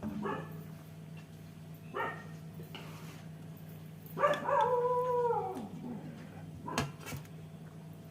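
A dog whining: short yips near the start and about two seconds in, then one long whine about four seconds in that falls in pitch at the end. A steady low hum runs underneath, and a sharp click comes near the end.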